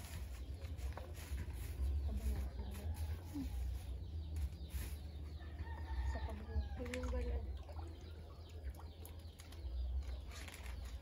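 Chickens clucking on and off, over a steady low rumble.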